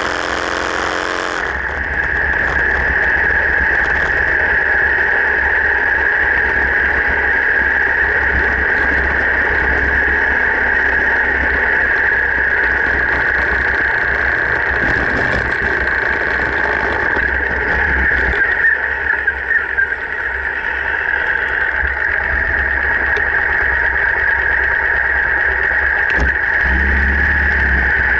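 Harley-Davidson V-twin engine running steadily as the motorcycle is ridden along a road.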